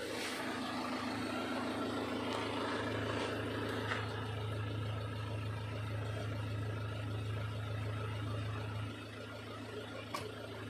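Ford Ranger engine idling with a steady low hum, which drops slightly in level about nine seconds in. A single sharp click sounds near the end.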